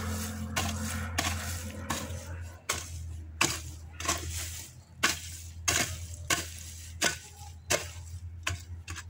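Quick, regular strokes of weeding in damp garden soil, each a short scrape and crunch of earth and roots, about two to three a second, over a steady low hum.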